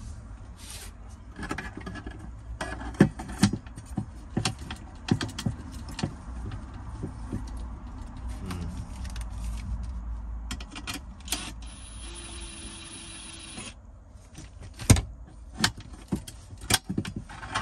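Scattered clicks, knocks and rattles of things being handled, such as a camera being set onto a tripod and parts being moved. About two-thirds of the way in, a small motor whirs steadily for under two seconds.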